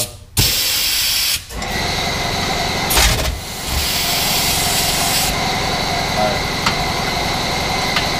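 Pneumatic air ratchet running on a rear camber arm bolt, hissing air and rattling. There is a short burst about half a second in, then a long steady run.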